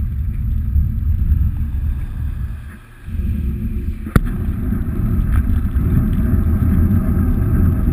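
Wind buffeting the microphone of a camera carried on a moving bicycle, a steady low rumble that drops away briefly about three seconds in, with one sharp click a little after four seconds.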